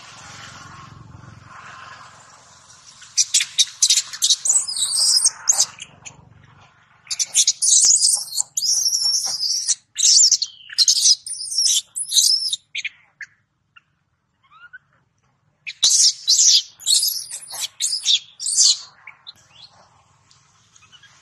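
Baby macaque screaming in shrill, high-pitched squeals, in three long bouts with short breaks between them.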